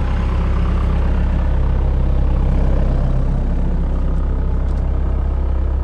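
Heavy equipment engine running steadily at a low, even speed.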